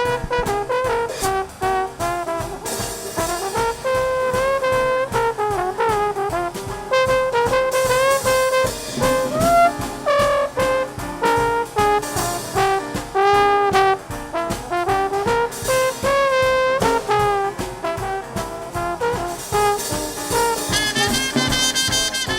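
Traditional Dixieland jazz band playing live in an instrumental passage, with brass horn lines carrying the melody over a drum kit.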